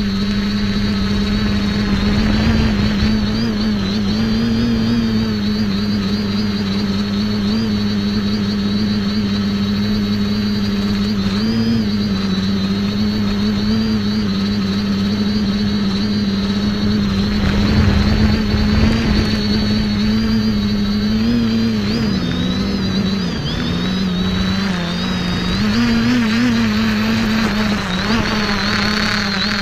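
X550AIOP quadcopter's motors and propellers humming steadily, heard from a camera mounted on the craft. The pitch wavers slightly with the throttle, dips for a few seconds about two-thirds of the way through, then rises again. Louder rushes of noise come about two seconds in and again near the middle.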